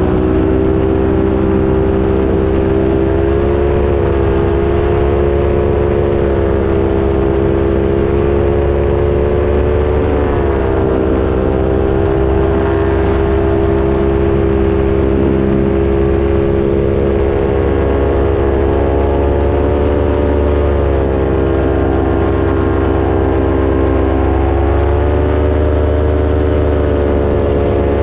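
Paramotor engine and propeller running steadily in flight, its pitch rising and easing back a few times. A low rumble runs underneath.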